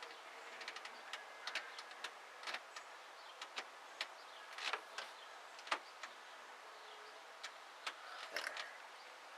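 Irregular light clicks and ticks, about fifteen scattered unevenly over several seconds, with no motor running.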